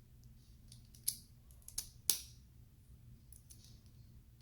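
LEGO plastic plates clicking as they are handled and pressed onto studs: three sharp clicks, the loudest just after two seconds in.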